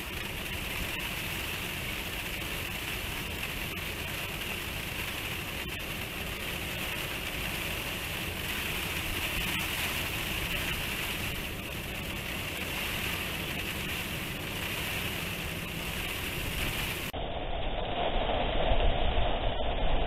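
Steady typhoon rain and wind. Near the end, gusts of wind buffet the microphone with a deep, louder rumble.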